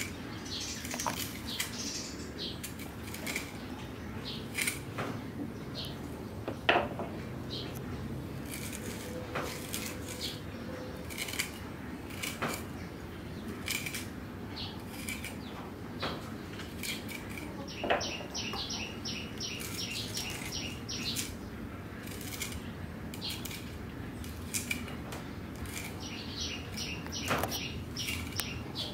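Cleaver hacking into a hand-held green papaya half and shaving the shreds into a bowl: irregular quick knocks and scrapes of the blade, with the odd louder knock.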